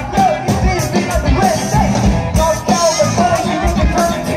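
A live rock band playing through the PA: distorted electric guitars, bass guitar and a drum kit keeping a steady beat.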